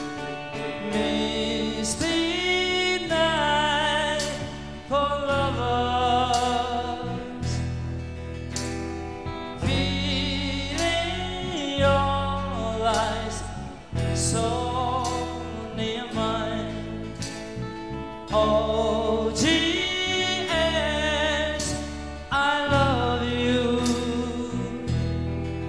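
A man singing into a microphone with a live rock band of guitars, keyboards, bass and drums, with long held vocal lines that slide in pitch.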